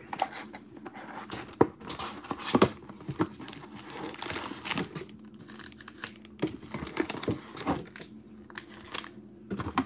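Plastic shrink-wrap crinkling and tearing, with cardboard rustling, as a sealed Panini Mosaic football card box is unwrapped and its lid pulled open. There are irregular crackles and snaps, the sharpest about one and a half and two and a half seconds in.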